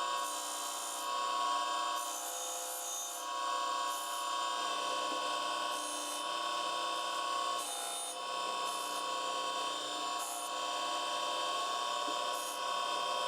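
Surface grinder running, its spinning wheel giving a steady whine. A hiss comes and goes in short spells as the wheel grinds across the forging tool (drift) on each pass.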